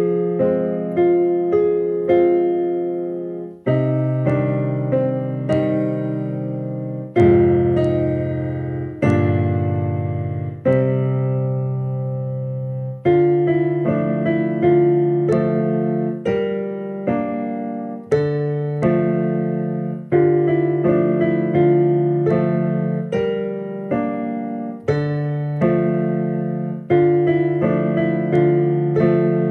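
A digital piano played solo: a slow piece of chords under a melody line, each chord struck and left to ring and fade before the next, about every one to two seconds.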